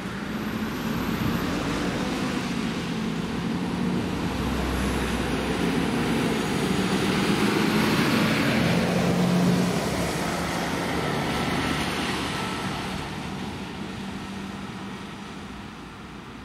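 A Mercedes-Benz fire engine and a fire service van drive past on a wet road with their diesel engines running and tyres hissing on the wet surface. The sound swells to its loudest about nine seconds in and fades as they drive away.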